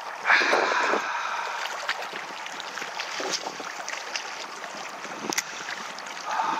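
Strong gusty wind and choppy river water lapping against the concrete bank blocks, with a louder rush of wind near the start.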